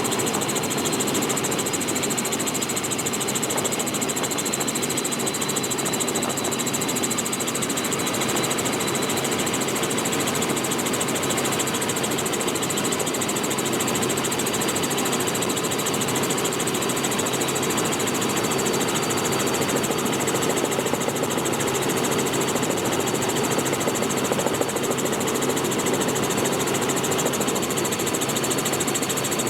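Robinson R44 helicopter in flight, its six-cylinder Lycoming piston engine and rotors running at a steady level. With the doors removed, the engine and rotor noise is mixed with a loud rush of wind.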